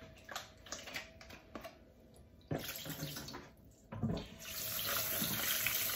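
Kitchen tap running into a sink as raw chicken legs are rinsed under it, with splashing and a few knocks of handling. The water runs full and steady for the last couple of seconds.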